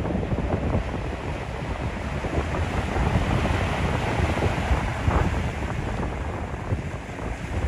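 Wind buffeting the microphone over the wash of sea waves, a dense steady rumble with no clear engine note standing out.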